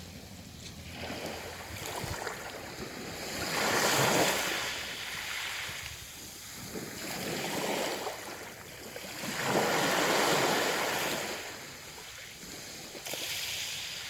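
Sea waves breaking and washing up the shore, swelling and fading every few seconds, the loudest about four and ten seconds in.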